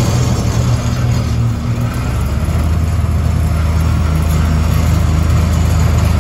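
Kubota four-cylinder diesel engine of a Dynapac CG16C II 3.5-ton vibratory roller running under load as it drives over a gravel pile with the drum vibration switched on. A steady low drone whose note drops lower a couple of seconds in.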